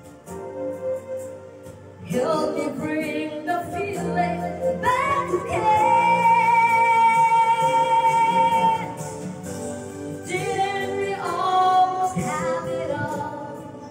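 A woman singing along with backing music, holding one long note in the middle before going on with the next phrase.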